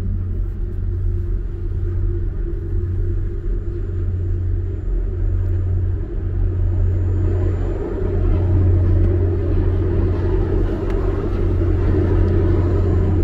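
Steady low engine drone of a moving car ferry, heard from inside a car's cabin; it grows a little louder about eight seconds in.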